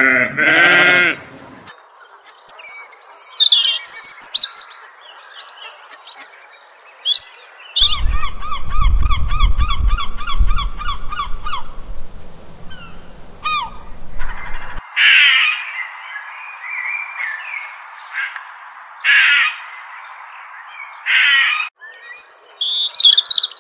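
A sheep bleats once at the start, a short wavering baa. After that, birds chirp, call and sing in several short snatches, with a repeating trill. A low rumble of wind on the microphone runs under the middle part.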